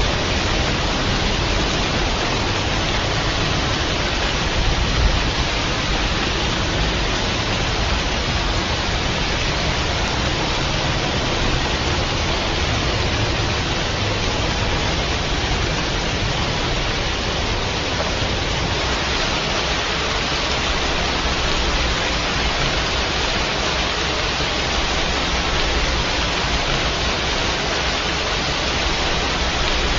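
Steady rain, an even, dense hiss with no single drops, rhythm or thunder standing out.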